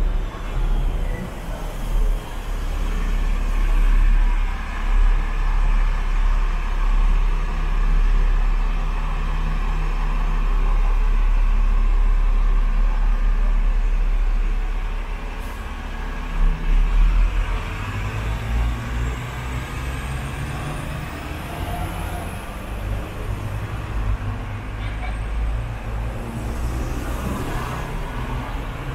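Hong Kong double-decker tram running along the street, heard on board: a steady low rumble of wheels on the rails with motor hum, street traffic around it.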